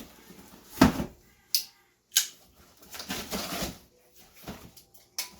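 A cardboard shipping box being handled and opened: a thump about a second in, then sharp scrapes and rustling of cardboard and packing.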